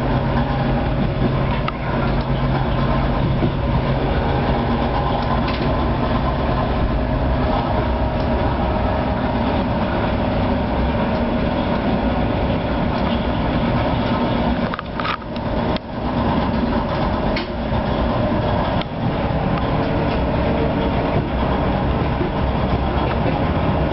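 Steady hum and rumble inside the driver's cab of an ER2T electric multiple unit, with a few sharp clicks about fifteen seconds in.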